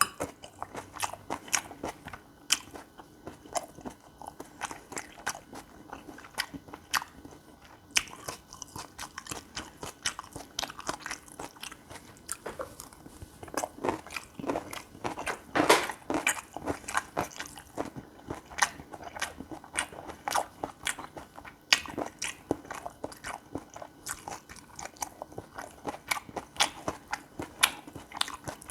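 Close-miked chewing and biting of gopchang fried rice, with dense, irregular sharp mouth clicks and smacks.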